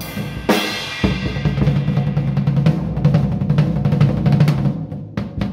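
Acoustic drum kit played along to a recorded song: busy strokes on the snare, toms and kick drum, with a cymbal crash about half a second in. The playing eases off near the end.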